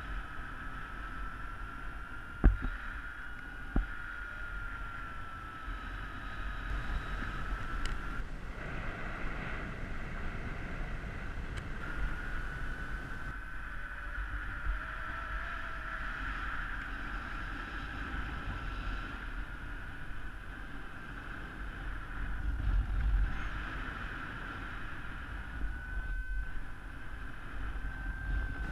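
Wind rushing past a paraglider pilot's helmet camera in flight, with a thin whistling tone that wavers slowly up and down in pitch, drops out briefly partway through and comes back. Two sharp knocks sound a few seconds in.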